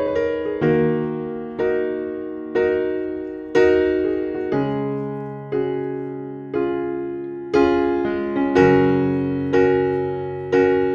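Background piano music: slow chords struck about once a second, each fading before the next.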